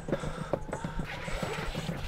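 Longboard wheels rolling over a pavement of paving slabs: a quick, irregular run of clacks as they cross the joints, over a steady low rumble.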